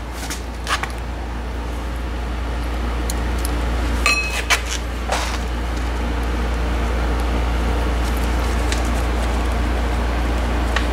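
Light metallic clinks of pliers against the cotter pin and spindle nut on a front wheel hub, a couple of them ringing briefly about four seconds in, over a steady hum.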